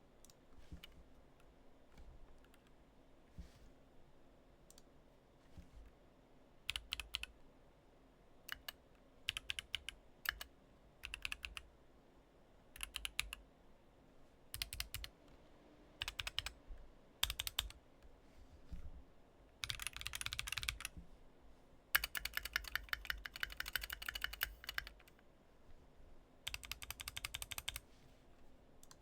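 Keychron Q2 mechanical keyboard with MMD Princess v3 tactile switches (60 gf) and ASA-profile keycaps, keys pressed in short clusters of clicks with pauses between. Two longer, rapid runs of keystrokes come about two-thirds of the way in, and another shorter one near the end.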